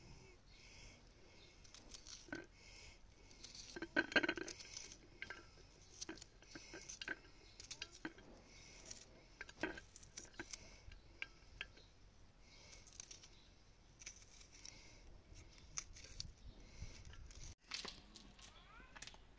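Faint, scattered small clicks, crunches and tearing sounds of hands handling food, with a louder cluster about four seconds in.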